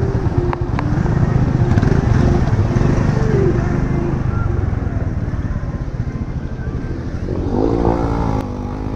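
Motorcycle engine running as the bike rides over a rough gravel road, with a steady low rumble. About three-quarters of the way through, a second engine note rises and falls as an oncoming motorcycle passes.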